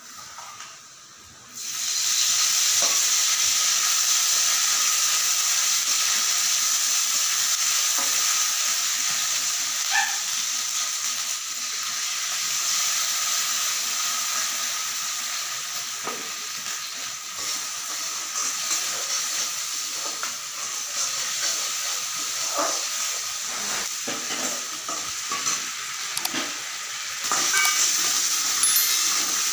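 Hot oil sizzling steadily in a kadai on a gas stove, starting about a second and a half in and growing a little louder near the end. Occasional light clicks of a spoon or spatula against steel bowls.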